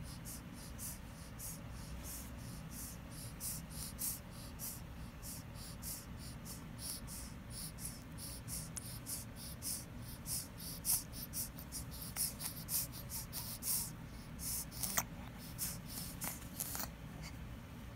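Faint, irregular scratchy rustles, a few a second, over a low steady hum, with one sharper click about fifteen seconds in.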